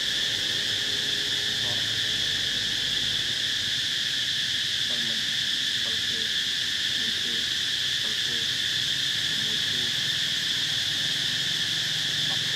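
Insects droning steadily at a high pitch, with faint short chirps underneath.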